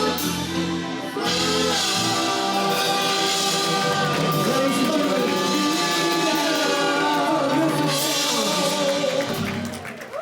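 Rock-style music: a singing voice holding long, gliding notes over guitar and drums, fading down near the end.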